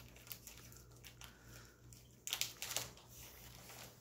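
Cat licking and chewing at catnip on the carpet: faint crackly clicks and crinkles, with a louder burst of them a little past halfway.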